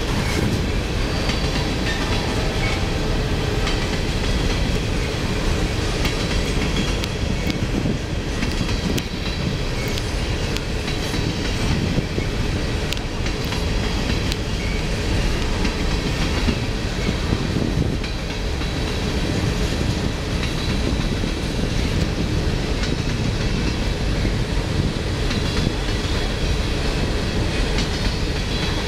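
Coal train's open hopper cars rolling past in a steady rumble of wheels on rail, with the clickety-clack of wheels over rail joints.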